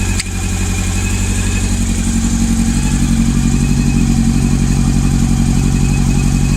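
Honda CB400's four-cylinder engine idling steadily on only three cylinders, with cylinder 3 not firing: the misfire sound. There is a brief click a fraction of a second in.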